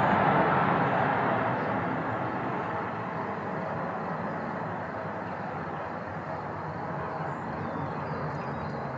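Boeing 777 freighter's twin GE90 turbofans at takeoff thrust as the jet lifts off and climbs away. A steady rushing noise fades over the first three seconds, then holds at a lower level.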